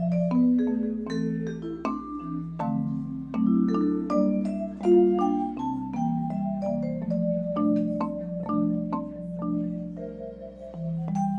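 Instrumental music: a steady flow of struck, ringing notes that fade after each strike, a melody over lower chords, in the manner of mallet percussion.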